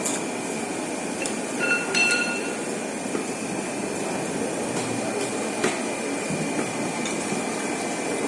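Steady, noisy working background with a few sharp metallic clinks, the clearest about two seconds in and again near six seconds. A short high beep-like tone sounds about two seconds in.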